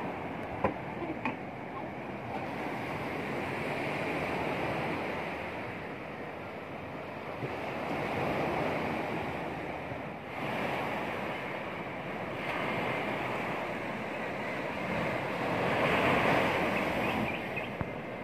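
Surf breaking and washing onto a sandy beach, swelling and easing every few seconds. Two short knocks about a second in.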